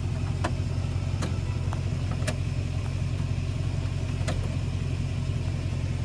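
Large farm tractor's diesel engine idling steadily, heard from inside the cab, with a few faint clicks.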